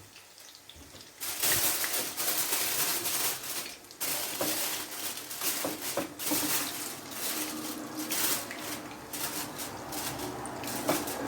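Kitchen tap turned on about a second in, water running into a sink with a steady rush that briefly dips and then carries on.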